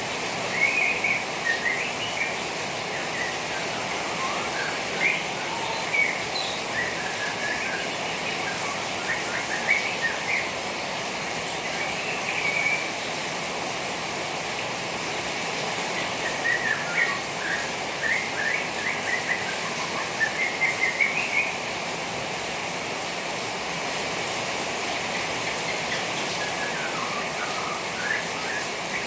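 Juvenile white-rumped shama twittering in spells of short, rapid chirps with pauses between. Under it is a steady hiss of trickling rainwater, which the keeper uses to set the bird singing.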